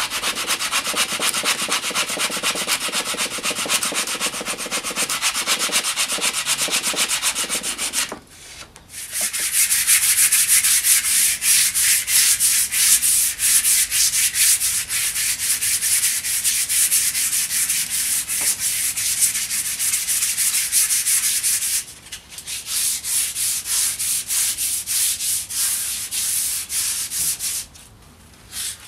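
Wood rasp scraping back and forth in quick, even strokes along a rattan stave, stripping the bark and rounding the cane. The rasping comes in three long bouts, pausing briefly about 8 seconds in and again about 22 seconds in.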